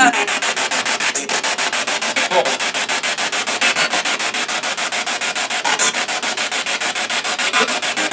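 Spirit box sweeping rapidly through radio stations, played through a small external speaker: a steady hiss of static chopped many times a second, with brief fragments of sound now and then.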